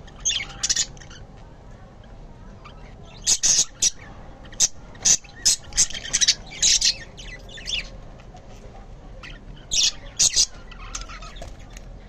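Budgerigars giving short, high chirps in bursts: a couple near the start, a quick run of them in the middle, and a few more near the end.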